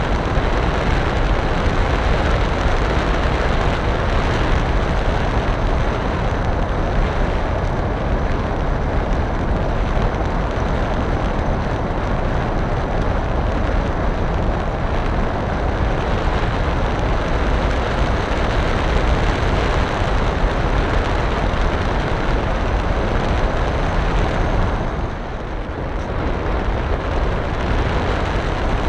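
Loud wind rush and propeller and motor noise picked up by a camera riding on a flying radio-controlled model aeroplane, with a faint steady high whine over it. The noise dips briefly a few seconds before the end, as if the throttle eases, then picks up again.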